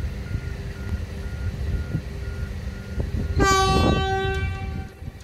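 Electric passenger train's horn sounding one long blast of about a second and a half, starting about three and a half seconds in, over a low rumble. Before it, a level crossing warning bell rings in short, evenly spaced dings.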